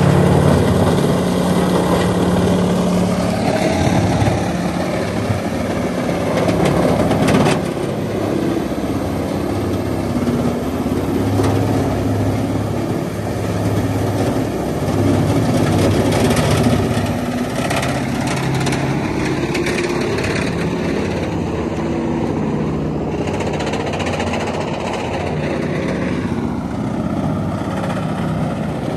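Peterson 4710B horizontal grinder running under load as its infeed chain carries brush, logs and stumps into the mill. The big diesel engine drones steadily, its pitch shifting as material feeds in, with a few sharp cracks of wood being broken.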